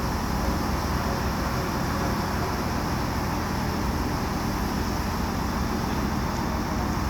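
A 50-ton mobile crane's diesel engine running steadily, with a low rumble and hiss that holds at an even level.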